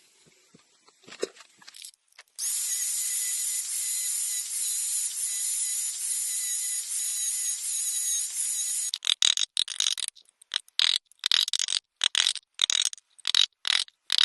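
A high-speed power tool working wood: a steady high whine for about six seconds, then about ten short bursts as it is run in quick strokes.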